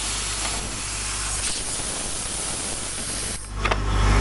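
Brake-lining CNC drilling machine giving a steady hiss while its low motor hum is off. About three and a half seconds in there is a click, and the motor hum starts up again near the end.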